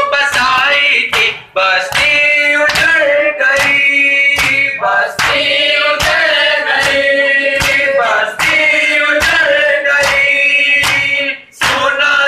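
A group of male mourners singing a noha (Shia lament) together, with loud hand slaps on their chests (matam) keeping a steady beat about one and a half times a second. The singing breaks off briefly near the end.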